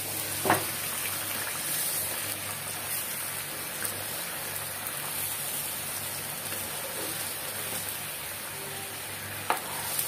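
Chicken curry sizzling and bubbling in a pot as the masala-coated chicken cooks down in oil and a little hot water: a steady crackling hiss. A sharp knock about half a second in and another near the end.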